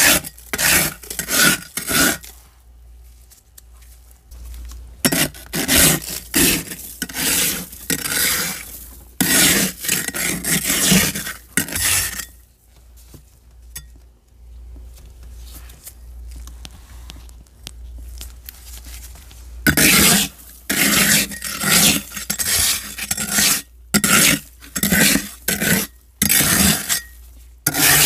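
Thick frost in a freezer scraped with a flat scraper blade, in repeated short scraping strokes. The strokes come in runs, go quieter for several seconds around the middle, and then pick up again quickly.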